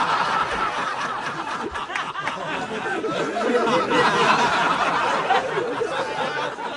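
Audience laughing after a joke's punchline, many voices overlapping in a sustained wave that swells again about four seconds in.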